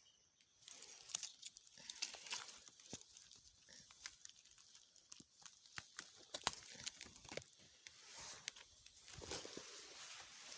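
Dry leaves and plant stalks rustling and crackling, with many scattered sharp snaps and clicks, as plants are handled and pulled in dry undergrowth.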